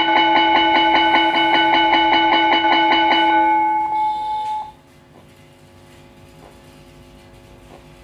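A recorded electric school bell played from a digital school bell timer's speaker: a fast, even ringing of repeated strikes. It stops about three and a half seconds in and dies away a second later, leaving only a faint background.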